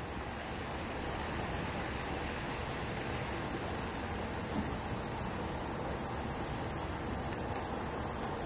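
A steady, unbroken high-pitched chorus of insects, with a low, even background noise beneath it.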